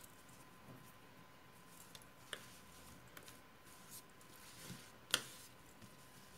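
Faint rustling and small clicks of a crochet hook working thick macramé cord, with two sharper ticks, about two and a half and five seconds in. A faint steady high tone runs underneath.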